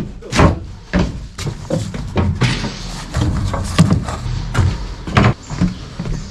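A quick, irregular run of knocks and bangs, roughly two a second, like work being done on boards and metal.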